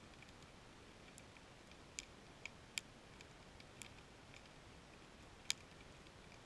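Faint, sparse, irregular sharp clicks picked up underwater, over a low steady hiss. The loudest click comes at the very start and another about five and a half seconds in.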